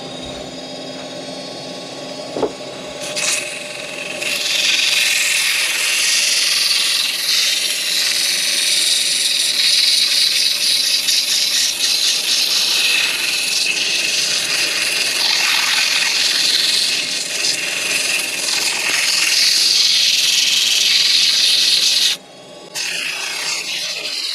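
Wood lathe running, with a steady hiss of wood being worked against the spinning piece, abrasive or tool on the turning. The hiss grows louder a few seconds in and drops off briefly near the end.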